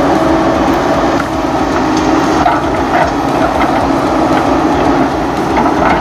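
Toy remote-control bulldozer running: a steady mechanical whir with small scattered clicks as its tracks and blade push through soil.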